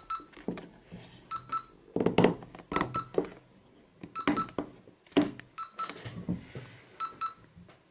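Short electronic beeps, mostly in quick pairs, repeating every second or so during Bluetooth pairing, with a few dull thumps between them.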